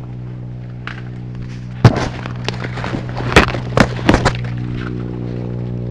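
Several sharp cracks of ears of corn being snapped off their stalks: one loud snap about two seconds in, then a quick cluster a second or so later. A steady low hum runs under them.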